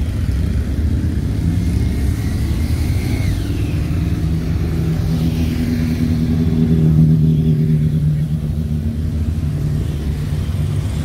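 Motorcycles and cars passing in slow, steady traffic with their engines running. One engine note grows louder toward the middle and fades again as it goes by.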